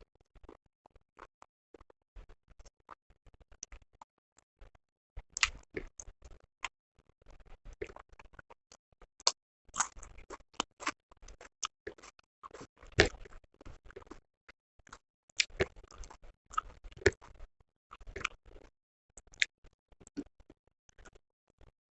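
Close-miked eating sounds: chewing and wet mouth clicks, irregular, with sharper louder clicks here and there.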